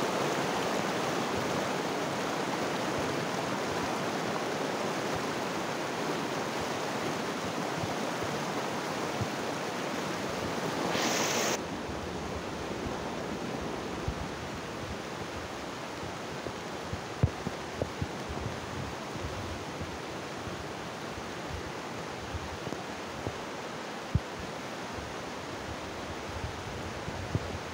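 Steady rushing of a muddy, flash-flooded mountain river churning over rocks. About eleven seconds in the noise briefly swells and then settles a little quieter, and a few short low thumps break through in the later part.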